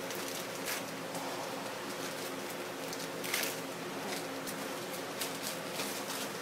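Spray-paint work on a painting: several short hisses and rustles, scattered through, the strongest about three seconds in, over a steady low hum.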